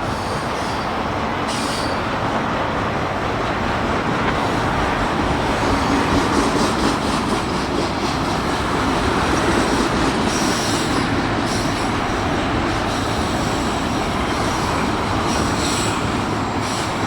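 BNSF auto rack freight cars rolling past on the rails: a steady loud rumble and clatter of wheels on track, with brief high-pitched wheel squeals in the second half.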